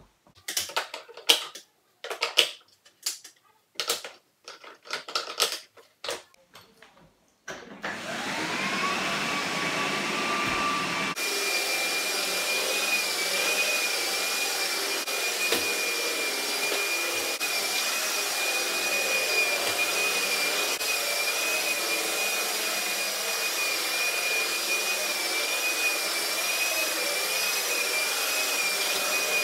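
A series of clicks and knocks as soft-bristled brushes are fitted to an old Phonola electric floor polisher. About eight seconds in, its motor starts with a rising whine, then runs steadily with a high whine as the brushes spin over the waxed marble floor, spreading the wax.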